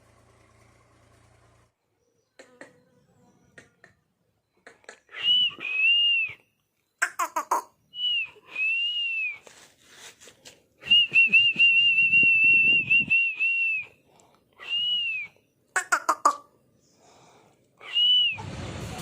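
A person whistling: several short rising-and-falling whistled notes and a long warbling run about halfway through, with a few sharp clicks between phrases.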